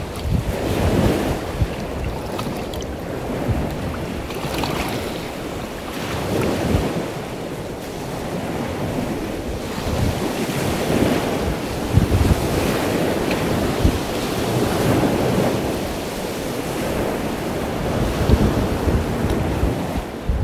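Wind buffeting the microphone in gusts over gently lapping sea water.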